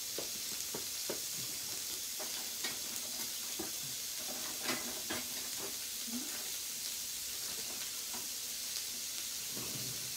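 Slices of meat sizzling steadily on an electric tabletop yakiniku grill plate, with scattered small pops and clicks throughout.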